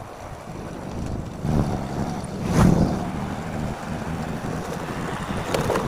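A vehicle on the move: steady low road rumble with wind on the microphone, swelling louder about two and a half seconds in.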